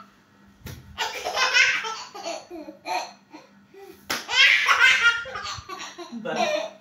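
Toddler laughing in repeated bouts: one starting about a second in, a louder one about four seconds in, and short giggles between.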